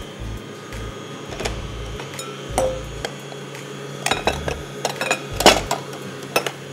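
Stand mixer running slowly with its dough hook turning flour and milk in a steel bowl, a steady low hum under scattered clinks and knocks, most of them in the second half.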